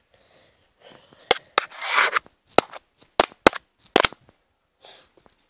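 Sharp clicks and snaps from a toy double-barrel shotgun's mechanism as it is worked and fired, about six unevenly spaced over three seconds. A short rustle comes after the second.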